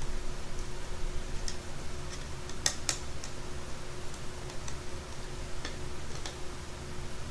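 Small screwdriver turning screws into a plastic robot-car chassis to fix a circuit board down: scattered, irregular light clicks of the tool on the screws, the loudest a quick pair about two and a half seconds in. A steady low hum runs underneath.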